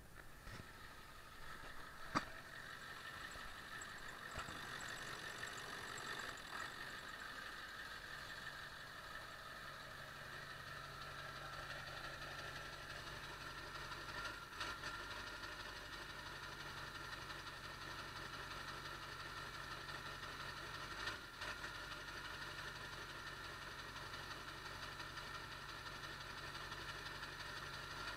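Ford 7.3 Power Stroke V8 turbo-diesel running steadily at idle, with a few brief stumbles. This is the hiccup at idle that persists after the ICP sensor was replaced.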